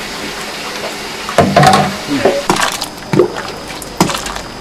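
Soup being ladled and poured from a large stockpot into a smaller pot, with liquid splashing. A few sharp knocks come from the metal ladle striking the pot rims.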